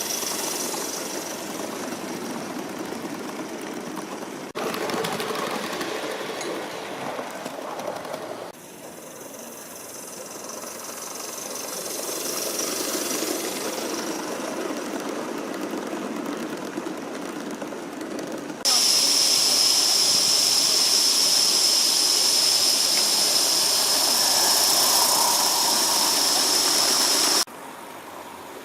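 Gauge One model locomotives running on a garden railway, heard in several takes that change abruptly. Near the end a loud, steady hiss with a high tone comes in and cuts off suddenly.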